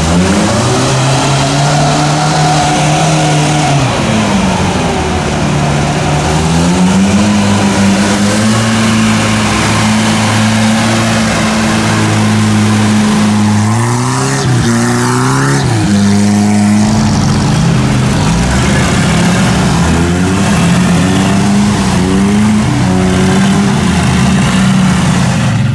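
Off-road vehicle's engine driven at high throttle. Its pitch holds, dips, then climbs, with two quick rising revs about halfway through.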